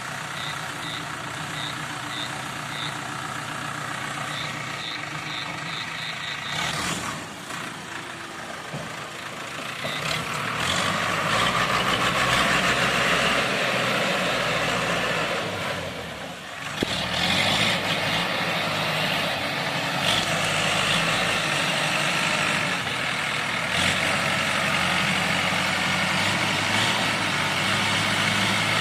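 Diesel engine of an old JCB 3D backhoe loader running. Short high beeps repeat over the first several seconds. From about ten seconds in the engine grows louder as it works, with a brief drop around sixteen seconds before picking up again.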